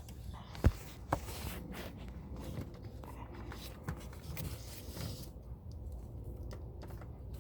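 Hands working a new PCV valve and its rubber boot into place under the hood: two sharp clicks about a second in, then scattered light knocks and rubbing of plastic and rubber parts.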